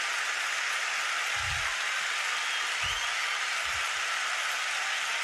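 Congregation applauding steadily, with a few dull low thumps mixed in.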